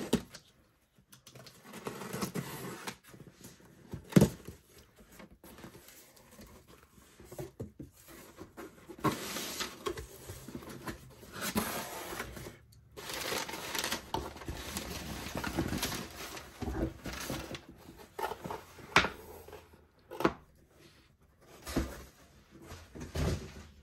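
Cardboard shipping box being opened by hand: a utility knife slitting the packing tape along the seam, the flaps pulled open, and crumpled kraft packing paper rustling and crinkling. Irregular scraping and rustling with several sharp clicks and knocks of cardboard, the loudest near the end.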